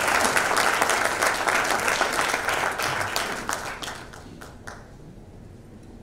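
Audience applauding, a dense patter of many hands clapping that thins out after about three and a half seconds and dies away to a few last claps.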